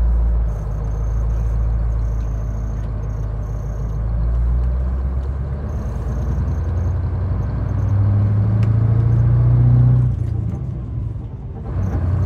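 Scania semi truck's diesel engine heard from inside the cab, pulling as the truck gets up to speed, its note growing louder and a little higher. Near the end it drops away briefly for a gear change, then comes back.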